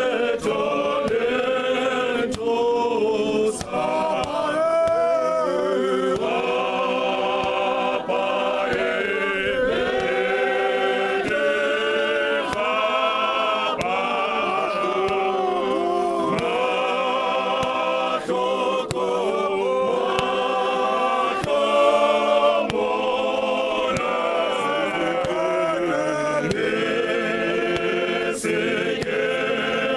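Male gospel choir singing unaccompanied in harmony, many voices holding long notes together and moving from phrase to phrase.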